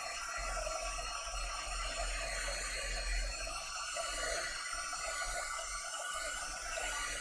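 Small corded handheld craft dryer running steadily, an even rush of air, drying chalk paste through a silk-screen transfer.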